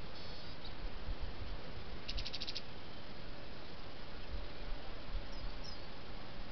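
Steady hiss with a low wind rumble from a trail camera's microphone, with faint bird calls over it: a quick trill of about seven high notes about two seconds in, and two short high chirps a little after five seconds.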